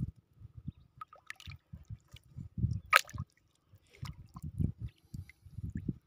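Small river waves lapping and slapping irregularly against the side of a boat, with one sharp click about three seconds in.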